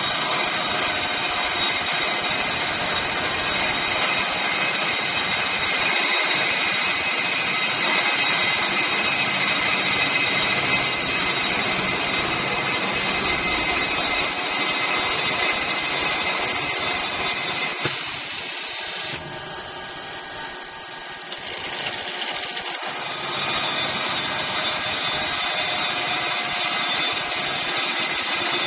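CNC drilling and cutting machine running with a steady mechanical noise. About two-thirds of the way through it turns quieter for a few seconds, then returns to full level.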